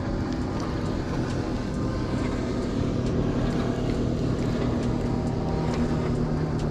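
Motorboat engine running, a low steady drone.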